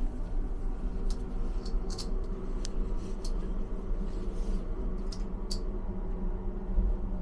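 Steady low hum of the ferry's machinery in an inside cabin, with a few light clicks and ticks scattered through it.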